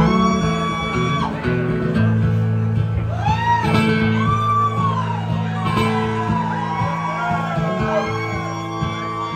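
Live country band playing the instrumental intro of a song: a fiddle carries a sliding melody over strummed acoustic guitar, bass and drums.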